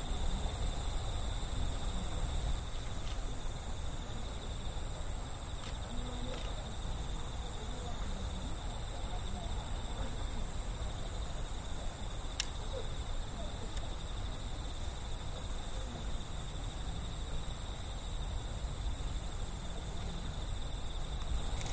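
Steady outdoor night ambience: a constant high-pitched ringing tone over a low rumble, with a single sharp click about twelve seconds in.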